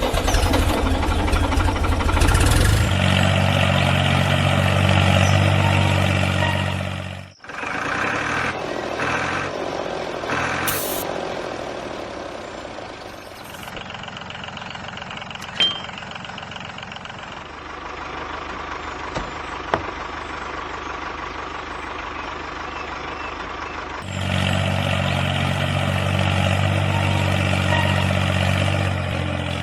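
Motor of a small homemade model tractor running with a steady engine-like drone. It is louder for the first few seconds, cuts out briefly about seven seconds in, runs quieter through the middle and grows louder again near the end.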